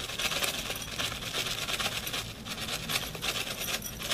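Dry seasoning shaken from a packet and sprinkled over a platter of seafood: a continuous fine, crackly rustle of granules landing.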